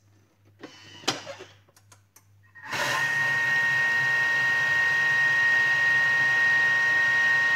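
Thermomix food processor's motor running a short 5-second mix of dry ingredients (flour, cocoa, sugar): a steady whirring whine with a high tone, starting abruptly about two and a half seconds in. A single click comes about a second in.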